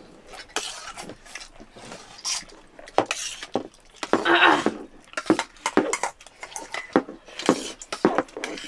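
Metal spoon clinking and scraping against a steel plate of rice in repeated short strokes as someone eats, with a longer, louder scrape of metal about four seconds in.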